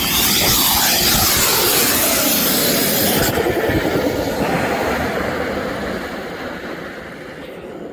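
Homemade turbocharged furnace running hard with a loud rushing hiss and roar. About three seconds in the high hiss cuts off suddenly, and the rest of the roar slowly dies away as the turbo runs down.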